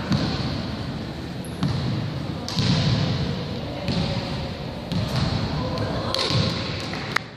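Basketball bouncing on a hardwood gym floor with a bounce about every second, among players' and spectators' voices, all echoing in a large hall.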